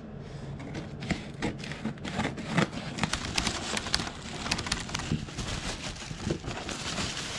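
Scissors cutting the tape on a cardboard box, then a paper gift bag with tissue paper pulled out of the box: irregular rustling, crinkling and crackling of paper and cardboard.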